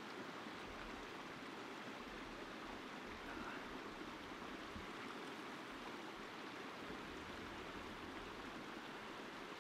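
Small mountain creek running, a faint steady rush of water.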